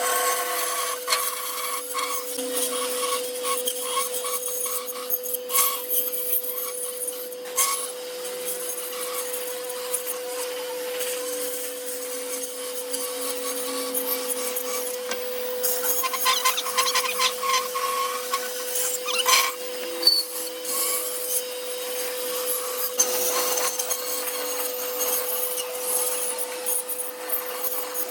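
Band saw cutting wood to shape a table leg: the blade rasps through the timber over a steady motor hum, the cutting sound shifting as the wood is fed.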